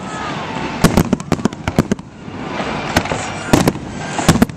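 Aerial fireworks display: shells bursting as sharp bangs in quick clusters, around one to two seconds in, again about three and a half seconds in and near the end, over a continuous noisy background between the bangs.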